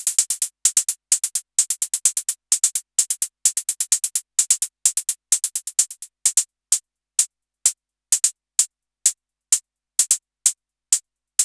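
Synthesized open and closed hi-hats from a Patching Panda HATZ modular synth module, mixed together and playing a pattern of bright, hissy hits. About six seconds in, the pattern thins to short, evenly spaced hits about two a second.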